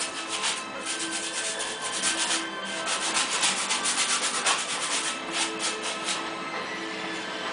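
Flat paintbrush scrubbing across a stretched canvas in quick back-and-forth strokes, several a second, easing off about six seconds in.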